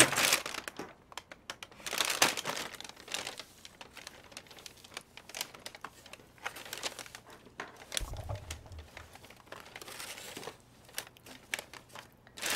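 Thin plastic carrier bag and clear plastic food tray crinkling and crackling in irregular bursts as they are handled and unpacked.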